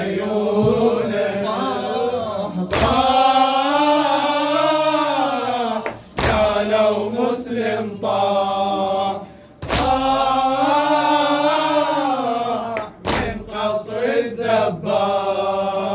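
A male reciter chanting an Iraqi Shia mourning lament (latmiyya) in long, wavering held notes, with short breath breaks. A sharp thump falls about every three and a half seconds, with a few more near the end.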